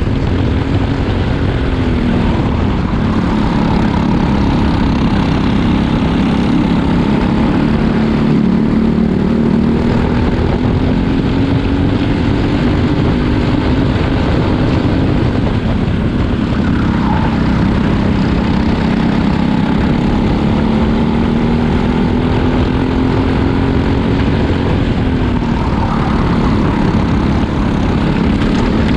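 Briggs & Stratton single-cylinder four-stroke kart engine at racing speed, its pitch falling and climbing again several times as the throttle is lifted and reopened, with the nearest dips a couple of seconds in, about halfway through and near the end.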